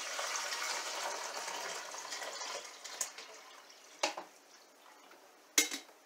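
Water pouring from a glass coffee-pot carafe into a drip coffee maker's reservoir, steady for about two and a half seconds and then trailing off. Then three sharp knocks and clicks as the pot and machine are handled, the loudest about five and a half seconds in.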